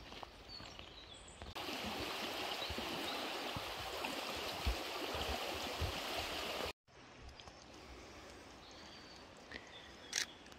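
Rushing river water, a steady even rush that starts abruptly about a second and a half in and cuts off suddenly before seven seconds, with a couple of low thumps within it. Around it is quieter woodland ambience with a few faint bird chirps.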